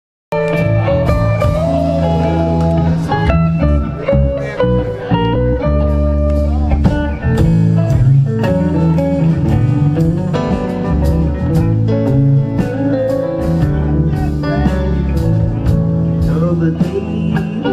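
Live rock band playing with electric guitars, bass guitar, drums and keyboards. The music cuts in abruptly mid-song, with guitar lines over a steady bass and drum groove.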